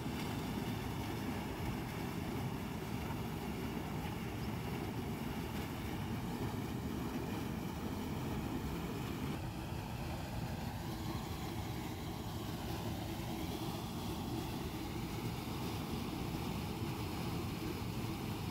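Steady rush of water pouring out of an outlet into a concrete irrigation channel, churning white at the inflow.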